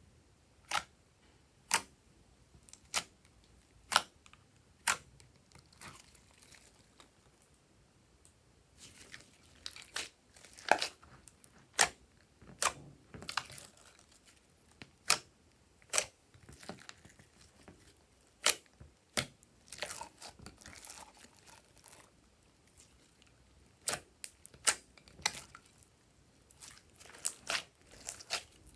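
Crafting handling noises from slime-making materials. Sharp clicks come about once a second at first, then a stretch of crinkling and tearing, then more scattered clicks near the end.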